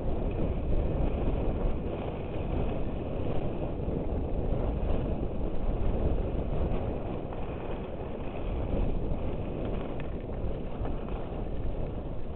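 Wind buffeting the microphone of a camera carried by a downhill skier, a steady rough rumble that swells and eases, mixed with the hiss of skis sliding over packed snow.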